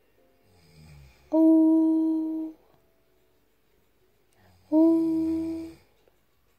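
A voice humming two long notes on the same steady pitch, one about a second in and one near the end, each held for about a second.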